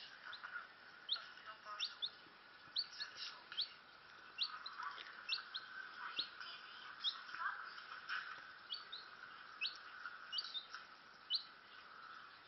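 Domestic chicken chick peeping: a string of short, high peeps, roughly two a second and unevenly spaced.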